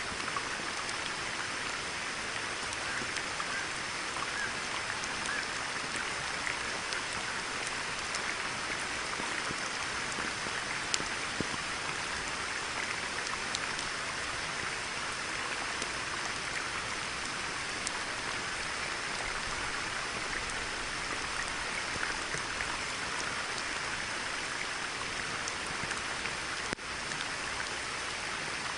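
Steady rain falling on a pond, an even hiss dotted with scattered drops ticking.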